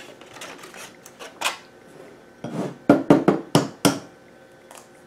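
A plastic egg carton and an egg being handled over a small saucepan: scattered light plastic clicks, then a quick run of four or five sharp knocks about three seconds in.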